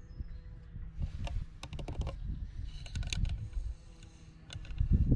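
Irregular light clicks and taps in quick little runs over a low rumble, with a louder dull knock near the end.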